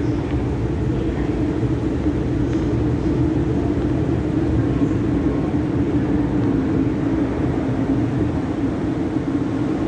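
MTR M-Train electric multiple unit passing through a station at speed without stopping, heard through the platform screen doors: a steady rumble of wheels on rail with a low hum.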